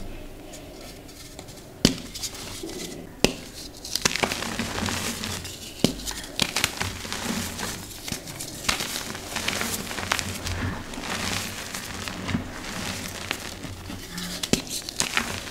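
Hands crumbling and crushing blocks of dyed gym chalk: dry crunching and crackling with sharp snaps as pieces break, over soft, dusty rustling. It is quieter for about the first two seconds, then the crunching picks up and keeps going.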